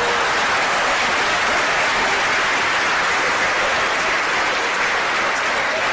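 Audience applauding, a steady, dense wash of clapping.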